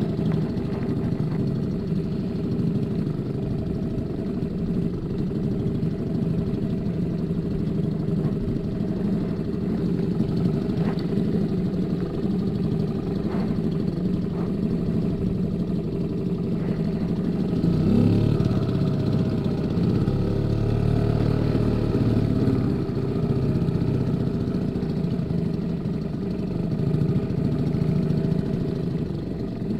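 Small outboard motor on an inflatable boat running steadily at trolling speed. It rises in pitch and gets a little louder about two-thirds of the way through, as if throttled up. A few light clicks can be heard a little before that.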